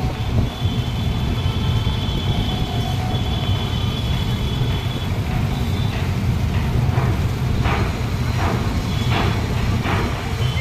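Steady low rumble of a passenger train running across a steel truss rail bridge. Thin high steady tones sound over it in the first half, and short sharp sounds come in from about six seconds in.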